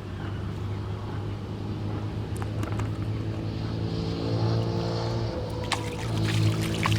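A motor running steadily at an even pitch, growing a little louder, with a few sharp clicks near the end.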